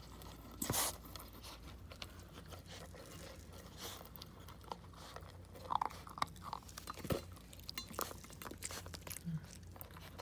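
A dog crunching and chewing dry kibble from a stainless steel bowl: irregular crunches all through, with a few louder ones about a second in and about seven seconds in.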